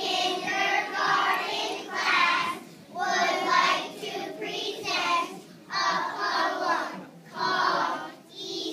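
Choir of young children singing together, in sung phrases broken by short pauses for breath.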